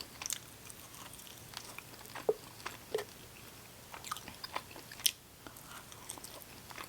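A person chewing and biting chicken close to the microphone: scattered short, wet mouth clicks and smacks, with a sharper one about five seconds in.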